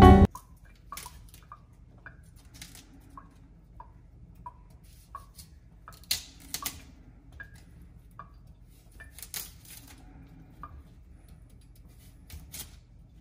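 A quiet run of small, light clicks and clinks of hard objects, many with a short ringing ping. They come at first about two a second, then more irregularly.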